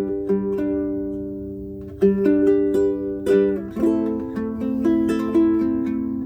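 Low-G-strung Baton Rouge UTM-C concert ukulele with a solid spruce top, played as a slow instrumental: a chord left to ring for about two seconds, then plucked melody notes over ringing chords, each note decaying after it sounds.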